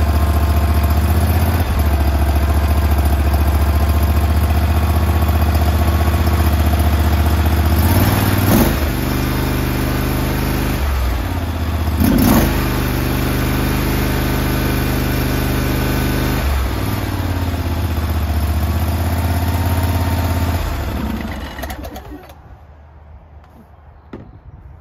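Briggs & Stratton Vanguard 23 HP V-twin engine in a John Deere 318 lawn tractor, freshly repowered, running on its first startup. Its speed changes several times with the throttle, with two brief louder surges. Near the end it winds down and stops.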